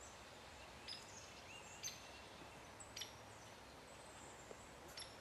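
Faint, quiet outdoor background with a few short, high bird chirps about a second apart.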